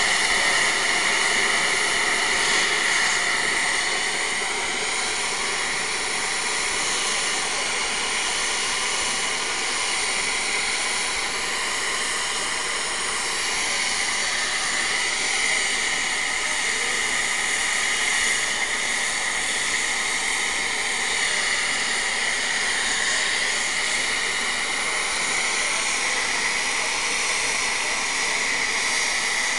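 Nickel Plate Road 765's steam boiler venting excess steam through the safety valves atop the boiler: a loud, steady hiss that runs without a break. It is the sign of a boiler at full pressure blowing off built-up steam while the locomotive stands and cools.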